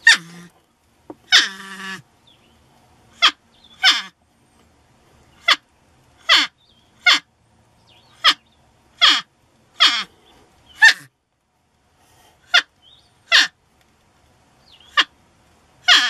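North American porcupine calling: about a dozen short, high cries at uneven intervals, each sliding steeply down in pitch, some ending in a buzzy whine.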